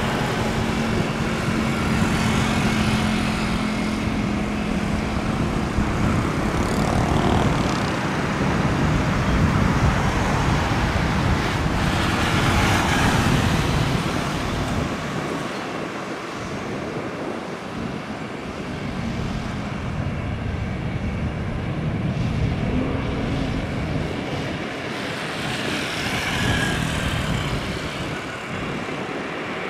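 Jet airliner engines running: a steady rushing noise with a low hum through the first six seconds, swelling a little around thirteen and again around twenty-six seconds.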